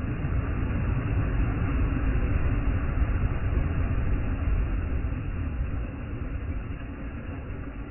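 Lake waves breaking and washing up a sandy shore, a steady rushing noise with a deep rumble that swells through the middle and eases after about six seconds.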